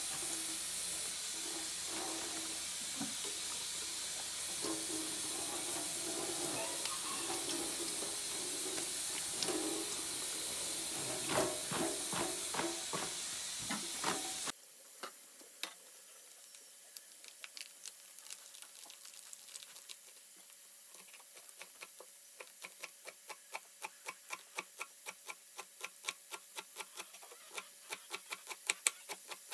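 A steady sizzling hiss of food cooking on the stove, with a few knocks, cuts off abruptly about halfway through. Then a kitchen knife chops collard greens into thin strips on a wooden cutting board: quieter sharp knocks, sparse at first and quickening to about three a second.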